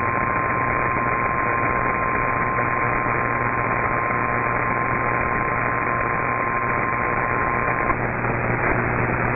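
Radio static and hiss from a weak, narrow-band broadcast signal. A single steady tone holds for about eight seconds and cuts off near the end, with a low hum underneath.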